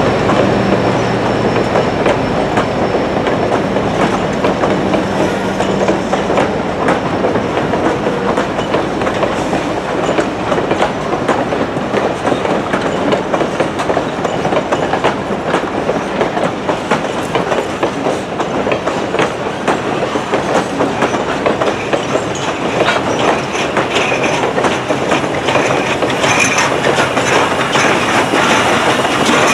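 Passenger coaches of a steam-hauled train rolling past, their wheels clicking steadily over the rail joints with a little squeal, getting brighter near the end as the steam locomotive comes alongside.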